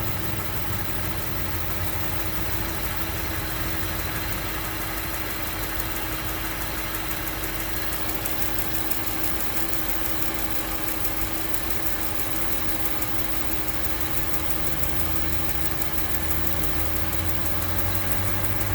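2008 Range Rover engine idling after a cold start with a rapid, even tick, tick, tick coming from the engine.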